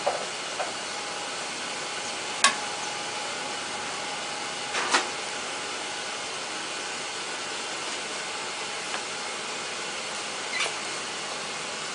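Buckwheat jianbing batter cooking on a round griddle with a steady sizzling hiss, and a few sharp taps of the spreader and spatula against the hot plate, the loudest about two and a half seconds in and a pair near five seconds.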